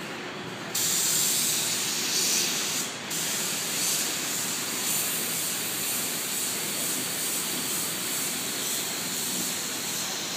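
Compressed-air paint spray gun spraying: a loud steady hiss of air and atomised paint that starts suddenly about a second in, breaks off briefly near three seconds, then carries on.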